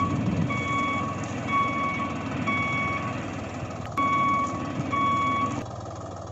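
Vehicle reversing alarm beeping about once a second over a low engine rumble; the beeps pause briefly past the middle, resume, and stop shortly before the end.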